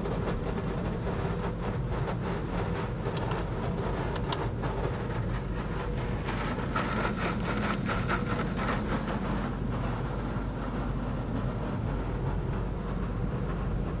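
Pre-soak spray from a WashTec SoftLine 2 tunnel car wash pattering steadily on the windscreen and body, heard from inside the car's cabin over a steady low rumble.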